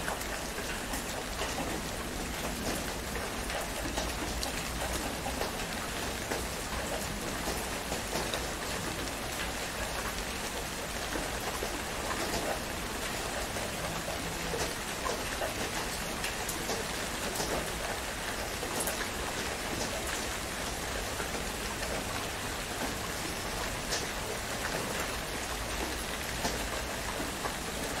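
Heavy rain falling steadily: an even hiss with many scattered sharp taps of drops.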